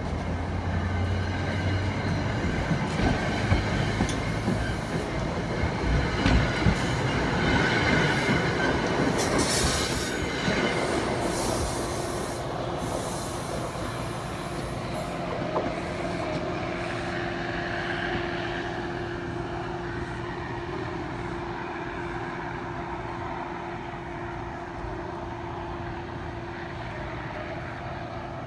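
Port Jervis Line commuter train's stainless-steel coaches rolling past and away, wheels clattering over the rail joints with some squealing. The sound fades as the train recedes, leaving a quieter steady hum.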